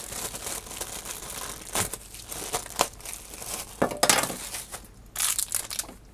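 Clear plastic bag crinkling as it is pulled off a mains socket outlet and its plastic bezel, with a few sharp plastic clicks among it, the loudest about four seconds in; it dies away near the end.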